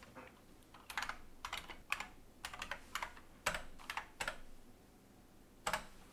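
Faint typing on a computer keyboard: a dozen or so irregular keystrokes, then a pause of about a second before a last keystroke near the end.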